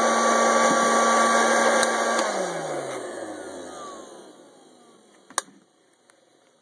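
Hot-air popcorn popper blowing hot air through roasting coffee beans, then switched off about two seconds in to end the roast: its fan hum slides down in pitch and fades as the motor spins down. A single sharp click near the end.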